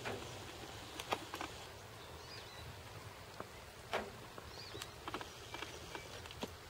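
Faint outdoor ambience: scattered light clicks and taps, two faint high chirps, and a low steady rumble underneath.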